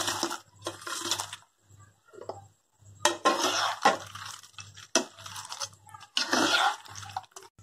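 Fried egg balls dropped into thick gravy in a non-stick pan and stirred in with a metal slotted spoon: wet stirring and scraping in several short bouts, loudest about three and six seconds in.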